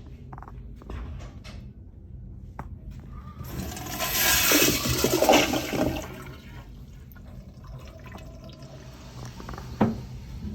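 Crane Plumbing Whirlton toilet flushing: a loud rush of water starts about three and a half seconds in, lasts some two and a half seconds, then falls away to a quieter trickle. A sharp knock near the end.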